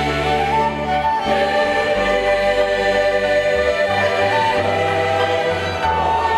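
Church choir singing a slow hymn with a violin ensemble, holding long notes over a sustained bass.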